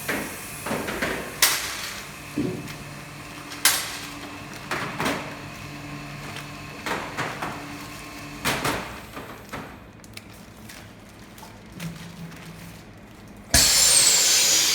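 Knocks and clicks of bags and parts being handled at a vacuum packing machine, then about a second before the end the machine starts with a sudden loud rush of air.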